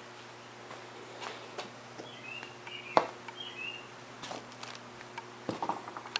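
Birds chirping faintly in short calls over a steady low hum. Scattered sharp clicks and knocks come through, the loudest about three seconds in, with a cluster of clicks near the end.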